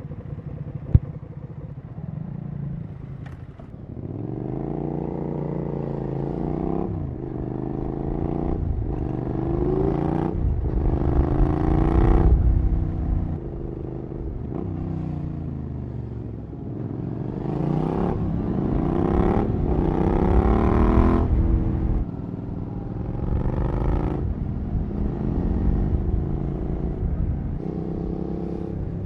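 Suzuki SV650SA's 90-degree V-twin with a Cobra SC3 exhaust accelerating through the gears. The pitch climbs and falls back at each upshift, in two runs of several shifts each, and is loudest near the top of each run. There is a sharp click about a second in.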